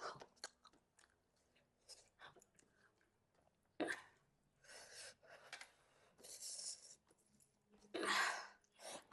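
Close-up mouth sounds of a person chewing food: wet smacks and clicks with several louder noisy bursts, the loudest about eight seconds in.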